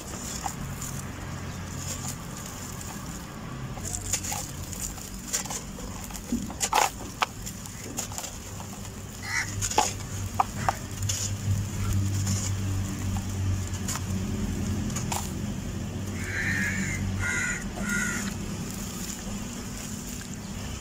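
Handfuls of soft, dusty dirt crumbling between the fingers and dropping into a basin of water, with scattered sharp splashes and crackles over a steady low hum.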